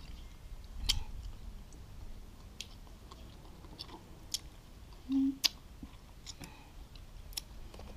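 A person chewing a mouthful of pounded spicy salad eaten by hand, with scattered small wet mouth clicks and a brief low voice sound about five seconds in.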